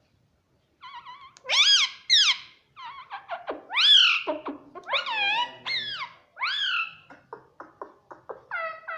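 Pet parrot calling: a quick run of loud squawks and screeches that sweep up and down in pitch, starting about a second in, with a burst of short clipped calls near the end.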